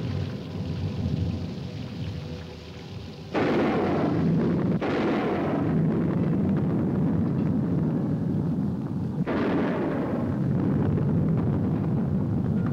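Thunderstorm: a steady rumble of rain and wind, broken by three sharp thunderclaps, about three seconds in, just under five seconds in and about nine seconds in, each rolling off afterwards.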